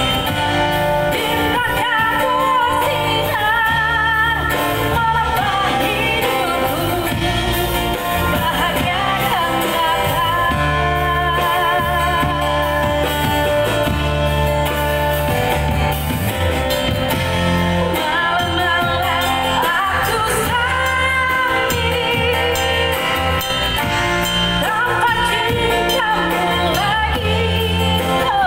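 A woman singing a song through a microphone and PA with a live busking band, over acoustic guitar. Her long held notes waver with vibrato above a steady low accompaniment.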